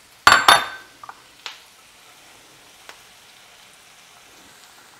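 Sliced mushrooms dropped into a stainless steel sauté pan of onions and peppers, with a couple of sharp ringing clinks about half a second in and a few lighter taps, then a faint steady sizzle of the vegetables frying over medium-low heat.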